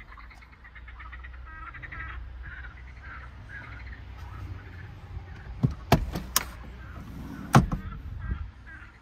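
Birds chirping over a steady low rumble, with a few sharp clicks and knocks from handling the car's interior fittings: three close together about two-thirds through and one more, the loudest, about a second later.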